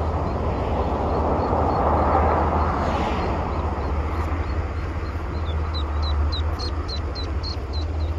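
Ducklings peeping: short high peeps, faint at first, then from about halfway a quick run of about four a second, over a steady low rumble.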